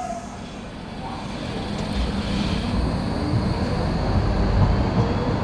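Docklands Light Railway B07 train pulling out of the platform. Its running noise builds as it gathers speed, with a low rumble and a motor whine rising in pitch near the end.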